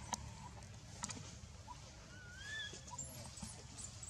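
Faint outdoor animal sounds: scattered short high chirps, two sharp clicks near the start and about a second in, and one rising whistled call about two seconds in, over a low steady rumble.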